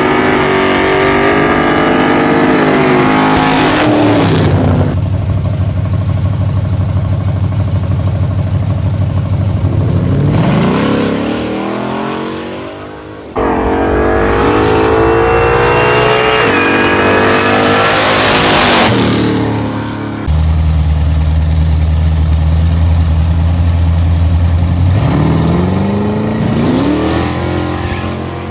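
Drag-racing cars' engines in three short cut-together clips. In each, the engine runs with a low steady note, then revs up with a sharply rising pitch as the car launches. Other stretches have the pitch falling away as a car pulls off or lifts.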